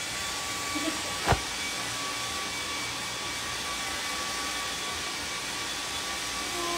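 Hair dryer running steadily: an even rush of air with a faint high motor whine. A single sharp tap about a second and a half in.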